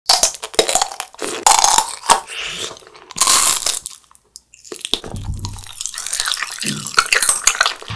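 Close-miked crunching of a tanghulu's hard candy shell, in many sharp crackles for about three and a half seconds. After a brief pause comes quieter, softer chewing of chewy sweets.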